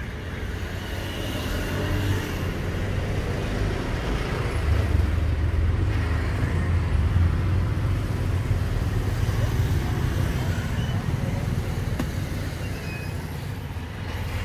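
Road traffic: a steady low rumble of vehicle engines and tyres that grows louder about five seconds in and eases off near the end.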